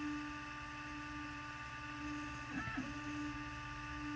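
Stepper motors of a home-built, GRBL-controlled cylindrical-axis laser engraver (a laser lathe) whining at a steady pitch as the machine engraves a dowel. The whine breaks briefly with a short chirp about two and a half seconds in, then carries on.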